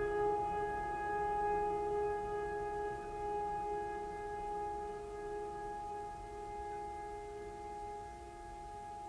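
Soft ambient background music: a held, steady drone of a few sustained tones that slowly fades.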